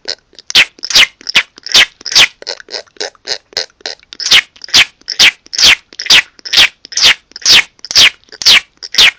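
A person making rhythmic clicking mouth noises: loud sharp clicks, each with a quick downward-sliding pop, about two a second, with softer, quicker clicks in between and a softer stretch a few seconds in.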